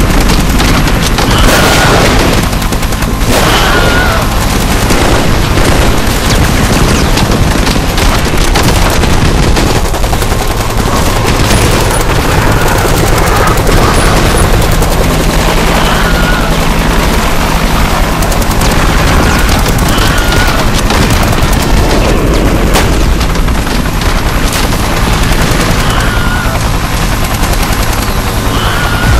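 War-film battle sound effects: dense, continuous rifle and machine-gun fire mixed with explosion booms, loud and unbroken.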